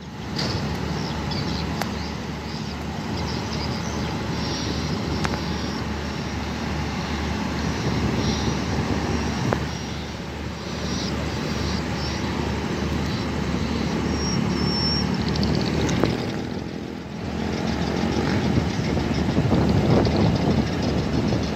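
Hitachi diesel-electric locomotive engine running steadily, a low pulsing rumble, heard from above the tracks.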